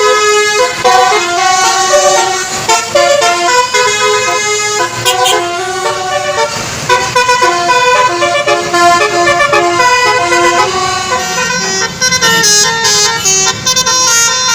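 Basuri telolet multi-tone bus horn playing a melody: quick notes stepping up and down, several tones sounding together, one after another without a break.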